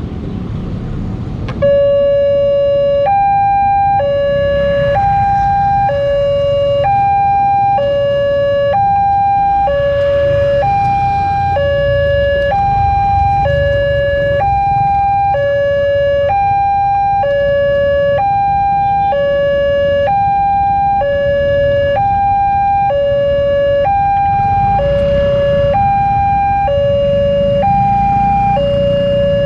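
Railway level-crossing warning alarm, an electronic two-tone signal that starts about two seconds in and switches between a low and a high tone about once a second. It is the warning that a train is approaching and the crossing barriers are closing. Motorcycle and car engines run beneath it.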